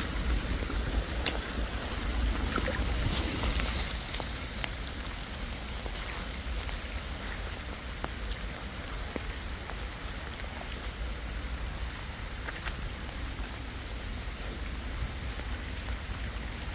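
Steady rain with scattered drops ticking close to the microphone, over a low wind rumble on the microphone.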